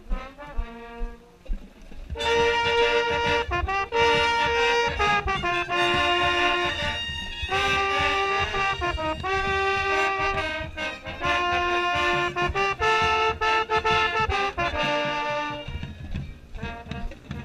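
Marching band brass playing, with a mellophone right at the microphone. A few scattered notes come first, then loud full playing of held, changing chords comes in about two seconds in and breaks off near the end.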